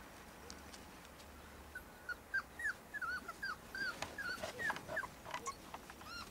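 Puppies whimpering and yipping: a run of short, high-pitched whines, several a second, starting about two seconds in, with a few sharp clicks among them.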